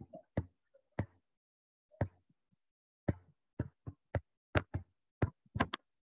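Irregular, sharp taps of a stylus on a writing surface as words are handwritten, about a dozen in all. They are sparse at first and come faster in the second half.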